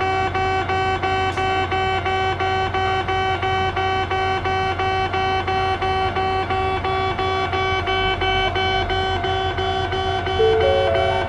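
Japanese railway level-crossing warning bell: an electronic alarm ringing in a fast, even repeating ding. Near the end a second tone rises in short steps.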